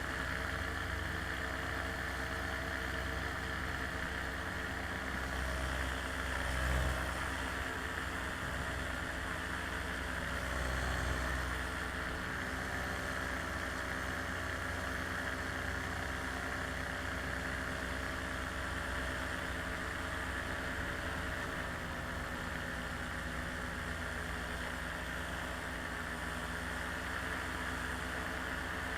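Steady mechanical drone of an aircraft in flight: a constant pitched engine tone over a low rumble. The rumble swells briefly twice.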